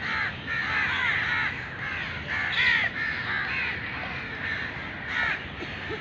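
Crows cawing repeatedly: a run of harsh caws coming one after another, loudest near the middle.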